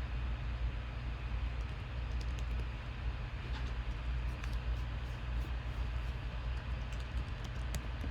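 Steady low hum of room noise, with scattered faint light clicks from about two seconds in.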